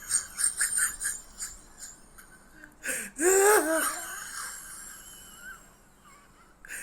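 A person's voice: a run of short, breathless wheezing gasps, then a loud, wavering, high-pitched voiced cry about three seconds in.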